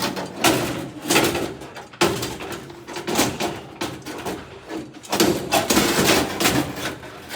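Irregular knocks, clanks and scraping of hand work with metal parts and tools, a few sharp strikes a second, with no steady rhythm.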